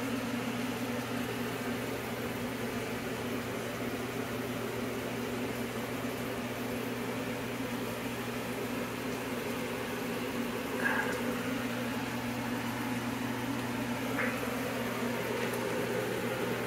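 Kitchen appliance fan running with a steady, even hum, with two faint brief ticks in the second half.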